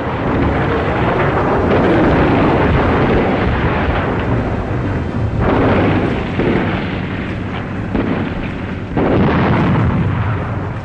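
War-film battle sound: a continuous rumble of explosions, with two sudden heavier blasts about five and a half and nine seconds in.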